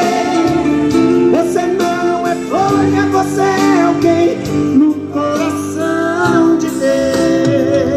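Two men singing a gospel praise song together through microphones, with instrumental accompaniment; long held notes that glide between pitches.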